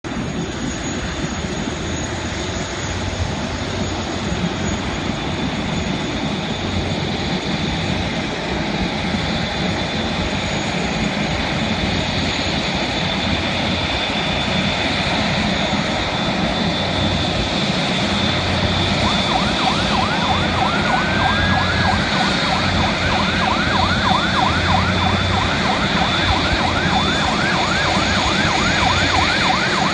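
Airbus A380's four jet engines running at taxi power, a steady whine over a broad rush that grows slowly louder as the aircraft approaches. About two-thirds of the way in, an airport fire truck's siren starts, wailing up and down in fast repeated cycles.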